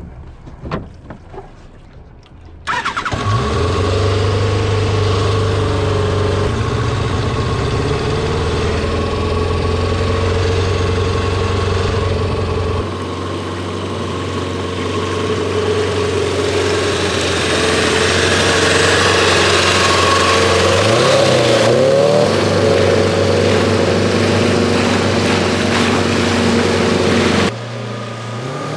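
Homemade jet ski's 1200cc four-cylinder Kawasaki superbike engine, fitted with a water-cooled exhaust, running steadily under way as it drives the jet drive. It comes in suddenly about three seconds in, after a few faint knocks, and revs up briefly late on.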